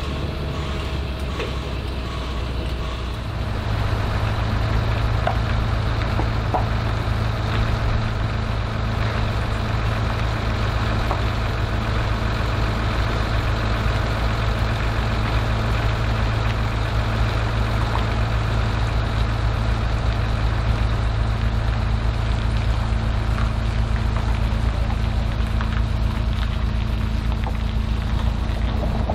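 Heavy haulage truck's diesel engine running steadily, pulling a multi-axle trailer loaded with a tram; it grows louder about three and a half seconds in and then holds a steady low drone.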